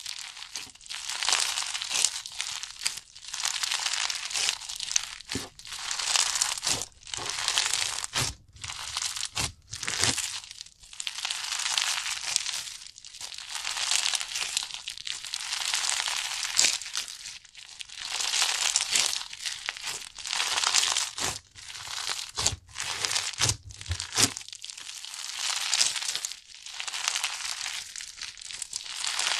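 White crunchy slime packed with small beads being squeezed and pressed by hand, crackling and crunching. The crunches come in repeated squeezes, about one a second, with short pauses between.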